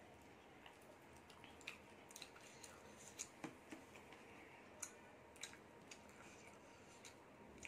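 Faint hand-eating sounds: soft squishes and a scattered run of small clicks as fingers mix rice and curry on a plate.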